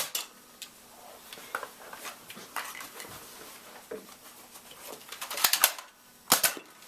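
Sharp plastic clicks and clatter from Nerf blaster shots and foam darts knocking into small plastic toy soldiers and cannons, with a cluster of clicks about five and a half seconds in and another burst about a second later.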